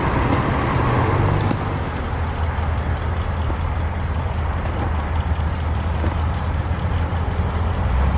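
Cars driving slowly past one after another, a steady low engine rumble that gets deeper and heavier near the end.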